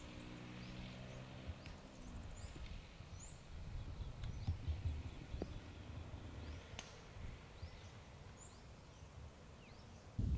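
Small birds chirping in short, high, repeated calls over a low steady rumble. A low hum fades out in the first two seconds, and a few faint sharp clicks come through in the middle.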